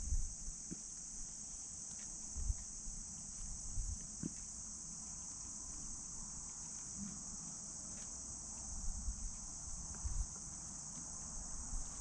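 Outdoor insect chorus: a steady, unbroken high-pitched chirring with no pause. A few brief low bumps sound now and then underneath it.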